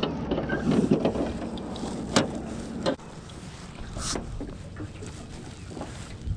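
Anchor rope being hauled in hand over hand over the side of a small riveted jon boat, the rope rasping and rustling, with a couple of short sharp knocks about two and four seconds in.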